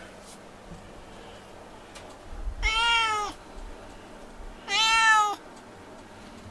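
A domestic cat meowing twice, about two seconds apart. Each meow lasts under a second and rises then falls in pitch.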